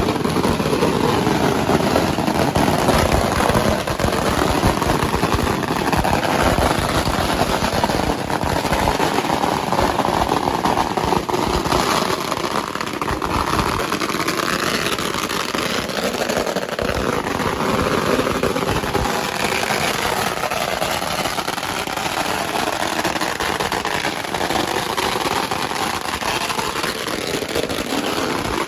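Pagara firecracker strings going off in a rapid, continuous crackle of small bangs.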